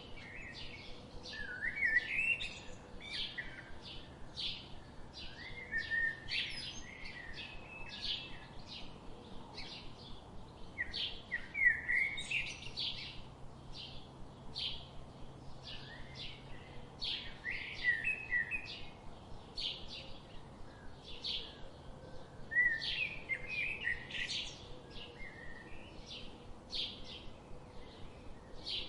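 Birds chirping: a steady run of short, high chirps, more than one a second. A louder warbling song phrase comes in about every five to six seconds.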